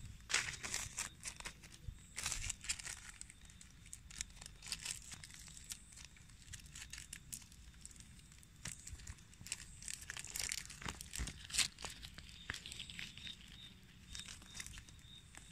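Clear plastic grafting tape crinkling and crackling in irregular bursts as it is stretched and wrapped around a mango graft.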